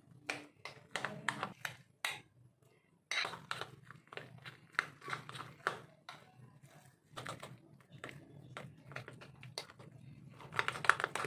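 Metal spoon stirring and scraping a thick semolina and curd batter in a glass bowl, with irregular clinks and scrapes of the spoon against the glass.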